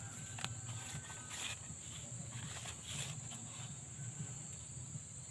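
Insects in riverside vegetation trilling in a steady high-pitched drone, with a few faint clicks over it.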